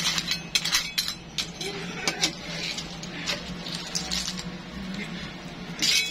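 Cooked clam shells clinking against each other and against a metal ladle and pan as the clams are stirred and scooped in their broth: a run of irregular sharp clicks, busiest in the first second or so.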